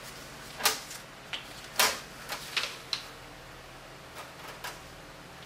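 Six short, sharp handling noises, clicks and brief scuffs, in the first three seconds, as a drill-mounted polishing pad and rubbing compound are handled. The drill is not running.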